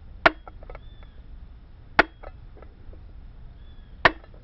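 A nail being driven through a thin tin-plate can lid to punch marking holes: three sharp metallic taps about two seconds apart, each followed by a few smaller clicks and a brief faint ring from the lid.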